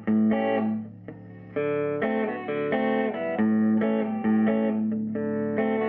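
Electric guitar chords, a Fender Mustang with P90 pickups played through a 1951 Gibson BR-6 tube amplifier set to about 4 on the volume, still below where it starts to break up. The chords ring out one after another, with a short pause about a second in.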